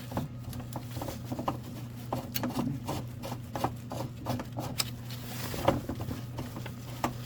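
Screws being turned in by hand to refasten the cover of a fire alarm control panel: irregular small clicks and scrapes of metal on metal, over a steady low hum.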